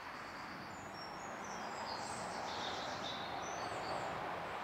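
Small birds chirping in short high notes over a steady hiss of outdoor background noise, which swells slightly about halfway through as a car drives past on the road.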